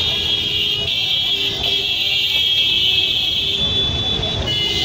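A shrill, steady high-pitched electronic tone sounds without a break, like a vehicle's electronic horn or buzzer, shifting pitch slightly a few times, over road traffic.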